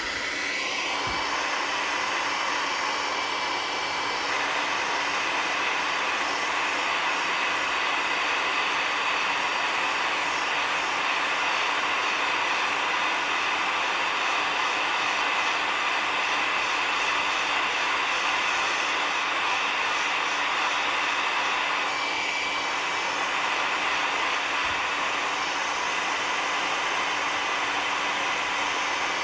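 Electric heat gun blowing steadily: an even rush of air with a faint fan-motor hum, heating the polyethylene hull of a kayak to soften it for plastic welding.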